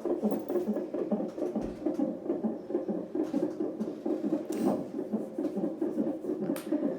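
Fetal heartbeat picked up by a CTG (cardiotocograph) Doppler ultrasound transducer and played through the monitor's speaker: a fast, even, rhythmic whooshing pulse, with a couple of faint scratchy clicks near the end.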